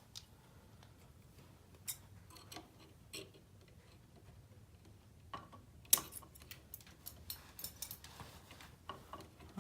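Sparse small clicks and clinks of a wire cutter working a thin doorbell wire, cutting it back a little further. One sharp click about six seconds in is the loudest, and a quick run of small clicks follows.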